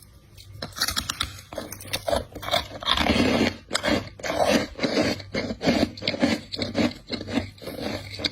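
Ice being bitten and chewed close to the microphone: a rapid, irregular run of sharp crunches, loudest about three seconds in.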